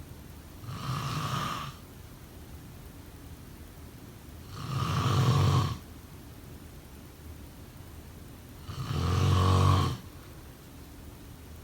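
A person snoring: three snores, each about a second long, coming roughly every four seconds, the second and third louder than the first.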